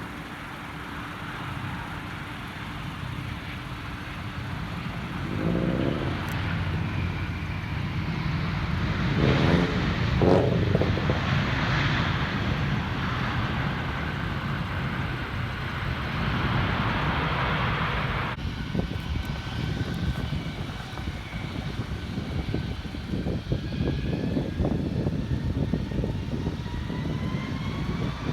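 Jet airliner engines running, a steady rumble and rush that grows louder over the first ten seconds. Near the end a whine begins rising in pitch, as the engines spool up.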